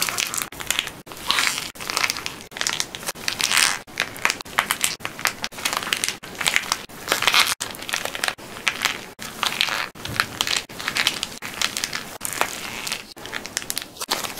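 Hardened plaster-clay shell cracking and crunching as hands squeeze and knead the soft clay beneath it: dense crisp crackling in repeated squeezes about a second long each.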